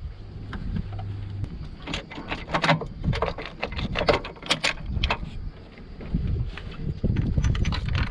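Parts and tools being handled by gloved hands in a car's engine bay: a quick string of small clicks and knocks over a low rumble, busiest in the middle.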